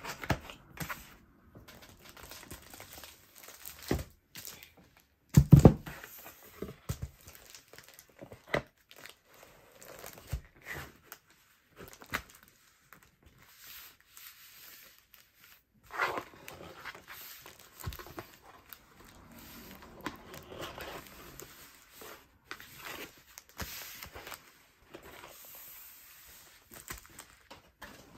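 A kraft cardboard mailer box being folded and closed by hand: cardboard rustling, scraping and clicking, with a dull thump about five seconds in. Clear packing tape is peeled and pressed onto the box.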